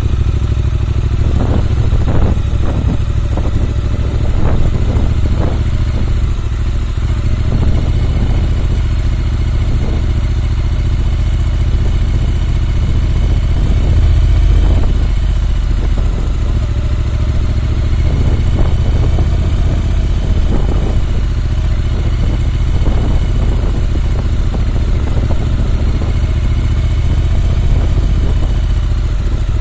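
Triumph Bonneville T120's 1200 cc parallel-twin engine running steadily as the motorcycle is ridden along, a deep, even rumble heard from the bike-mounted camera.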